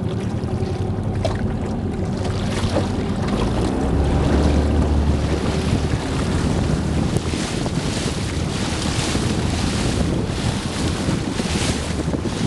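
Wind buffeting the microphone on a boat over open water, with water washing alongside. A low rumble swells about four seconds in and then eases.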